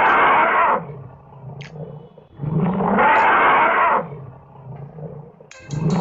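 Recorded big-cat roars, lion or tiger, played as an animal voice: one roar fading out, a full one in the middle and another starting near the end, each about a second and a half long.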